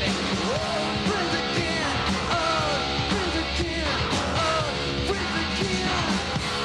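Live rock band playing: a male singer's wordless vocal sliding up and down over guitar and drums.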